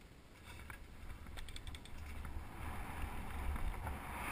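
Mountain bike rolling fast down a dirt trail: wind on the microphone and a low tyre rumble grow steadily louder, with a few quick rattling clicks about a second and a half in.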